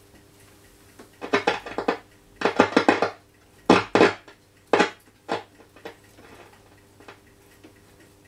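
Decca DMR88 valve radio's waveband switch being worked back and forth, giving several loud bursts of crackles and clicks over the first two-thirds, then only faint ticks, over a faint steady hum. The crackle comes from the switch's contacts, which he suspects are dirty and in need of switch cleaner.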